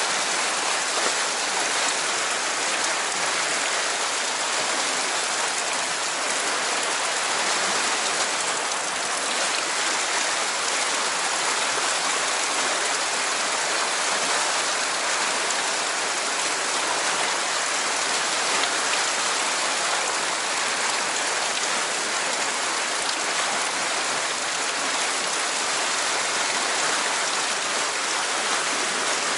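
Steady rushing roar of churning whitewater, fast water tumbling and foaming close by.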